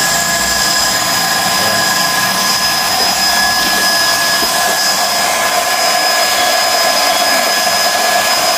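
GX-E-CS2 portable 12-volt high-pressure air compressor running steadily, a motor-and-fan whine over a hiss, pumping air into a PCP tank.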